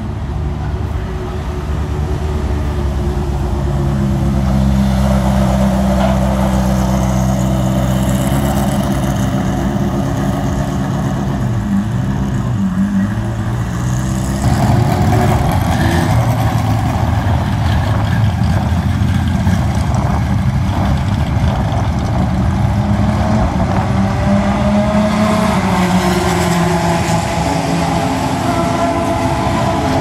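Vintage race car engines running at low revs: a deep, steady idle that grows louder a few seconds in. About halfway the note dips, then a higher, rougher engine sound joins as a car moves off, with a short rising rev near the end.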